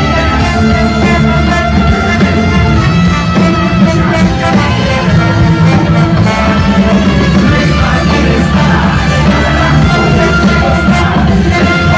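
Live ska-punk band playing loudly: trumpet, trombone and tuba over electric guitar, bass guitar and drums.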